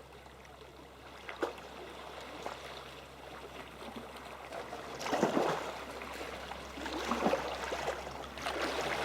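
Kayak paddle strokes splashing and sea water sloshing around the kayak, with the biggest splashes about five, seven and eight and a half seconds in.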